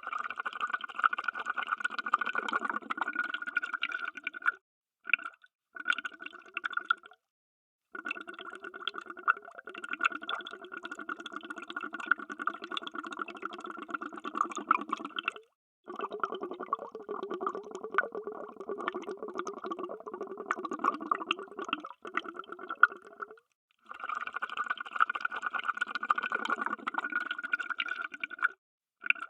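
Underwater bubbles: a dense stream of bubbling and gurgling, cut off abruptly to silence several times and starting again each time.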